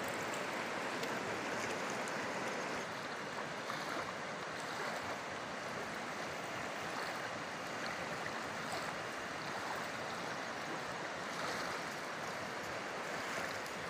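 Fast-flowing river running over rocks, a steady, even rush of water.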